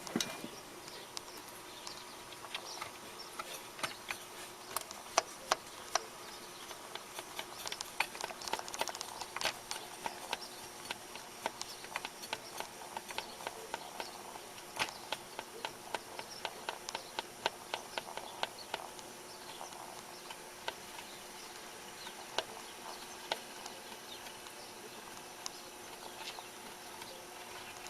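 Small irregular clicks and scratches of hands working over a turntable's belt-drive mechanism, cleaning it with contact cleaner, over a faint steady electric hum.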